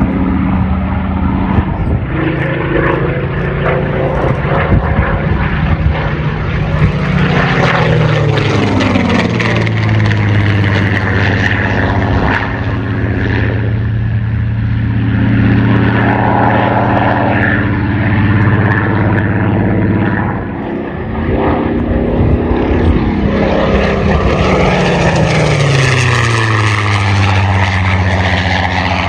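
Supermarine Spitfire Mk XIV's Rolls-Royce Griffon V12 engine and propeller in flight, a steady drone that drops in pitch twice as the aircraft sweeps past, once about a third of the way through and again near the end.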